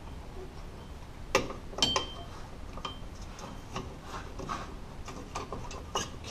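Steel pliers scraping and clicking against a drum brake's shoe return spring as it is worked loose, with a few sharp metallic clinks, one of which rings briefly.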